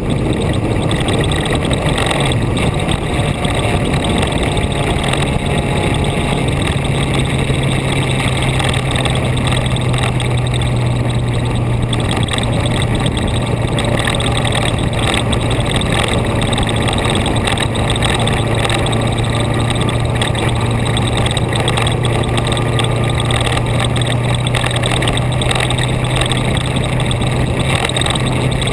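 A vehicle's engine running at a steady pitch under a constant rush of wind and road noise; the engine note rises slightly about two seconds in, then holds.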